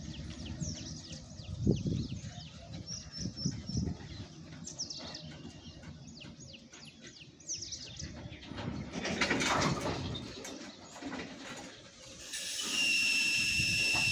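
Freight wagons rolling slowly on the rails, with a low rumble and heavy clunks from the wheels and quick, high falling chirps through the first half. About twelve seconds in, a steady hiss with a high whistling squeal starts and holds: the train's brakes.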